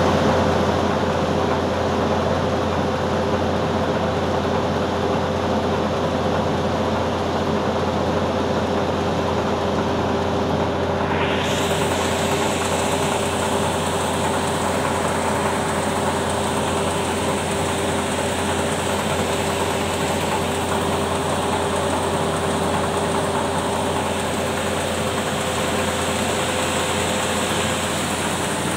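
Large air-started diesel engine running steadily, a loud even machine drone with a low hum and steady tones. About eleven seconds in, a higher hiss joins and continues.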